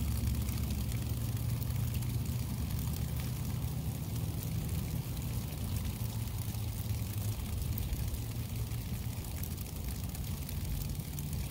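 Rain falling and dripping steadily, with a low rumble that dies down over the first several seconds.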